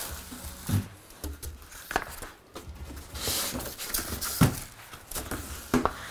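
Large cardboard speaker carton being handled and lifted: scattered knocks and thumps of the cardboard, with a stretch of scraping, rustling cardboard a little after three seconds.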